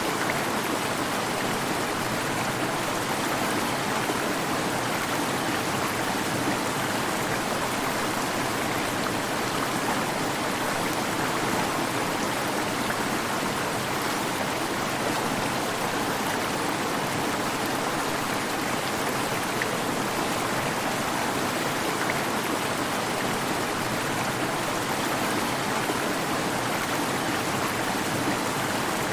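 Waterfall: falling water rushing steadily, with no change throughout.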